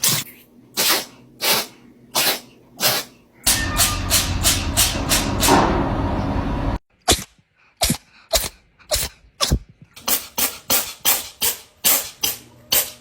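A cat sneezing again and again in short, sharp sneezes, about one every two-thirds of a second at first and quickening to two or three a second in the second half, with a brief break about seven seconds in.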